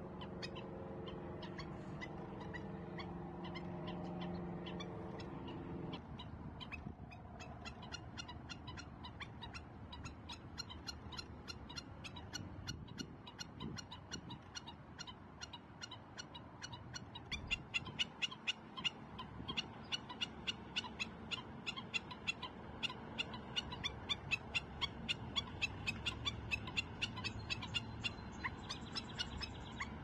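Black-necked stilts calling persistently, a fast run of sharp, high notes several a second that grows louder about halfway: alarm calling to distract from a nearby nest. For the first six seconds a low drone with several steady pitches lies underneath.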